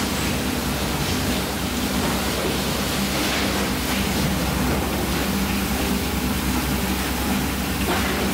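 Water running and bubbling in a live seafood tank, a steady rushing noise, with a steady low hum underneath.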